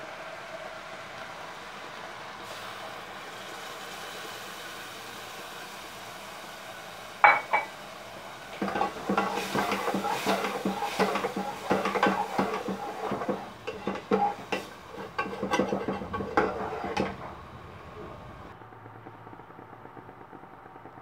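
Metal spoon stirring and scraping in an aluminium saucepan of coconut milk, a quick run of clinks and scrapes lasting about eight seconds. It starts with a single sharp clink about seven seconds in, after a stretch of steady low hiss.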